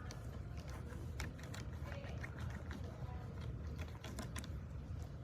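Faint, scattered light clicks and taps of small objects being handled, over a steady low hum.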